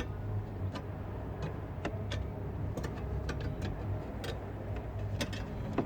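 Irregular light clicks and knocks from wiring and plastic parts being pushed and handled in a car's dashboard radio opening, over a steady low hum.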